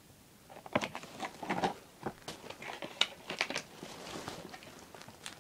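Clear plastic packaging of a set of lip balms being handled, giving irregular crinkles, crackles and clicks.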